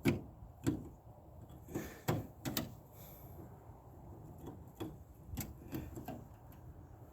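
Irregular clicks and knocks of car door handle parts being handled and fitted against the door, a cluster in the first three seconds and a few more later.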